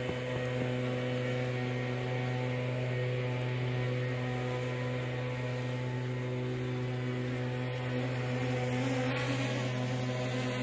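Small quadcopter drone's motors and propellers buzzing in a steady hum, as when it hovers. The pitch wavers slightly about eight seconds in.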